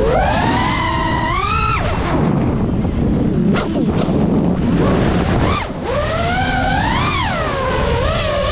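5-inch FPV quadcopter's motors and propellers whining, the pitch sweeping up and down with the throttle through flips and rolls. The whine drops back for a few seconds in the middle, leaving a rushing wind noise on the onboard microphone, then climbs again near the end.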